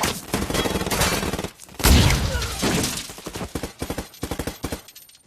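Film-soundtrack gunfight: rapid, dense automatic gunfire. About two seconds in comes one heavy, bass-laden blast, after which the shots grow sparser and fade toward the end.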